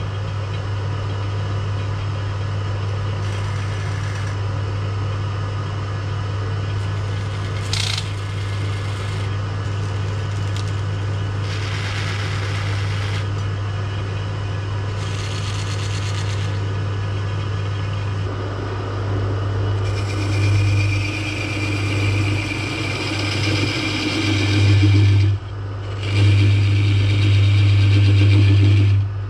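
1970s Coronet woodworking lathe running steadily with a low motor hum as an ash blank spins. A few brief scrapes come as lines are marked on the spinning wood. From about two-thirds of the way in, a turning tool cuts into the ash louder and rougher, with a short break near the end.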